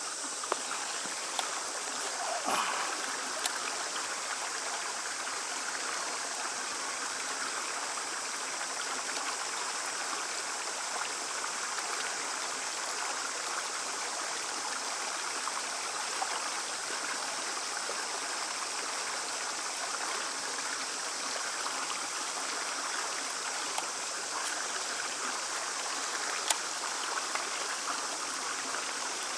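Water running over rocks, a steady rushing sound, with a few light clicks.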